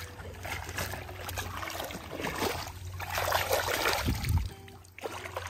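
Water sloshing and trickling as a plastic toy animal is rinsed by hand, louder for a stretch about three seconds in.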